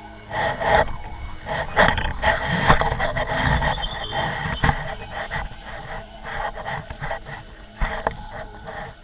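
Wind buffeting the microphone of a camera hung from a kite, in irregular gusts with a low rumble.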